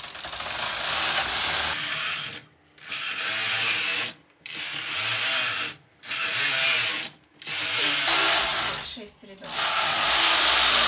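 Brother KH260 knitting machine carriage pushed back and forth across the needle bed, knitting row after row. Each pass is a loud rasping run lasting a second or two, with short pauses between passes.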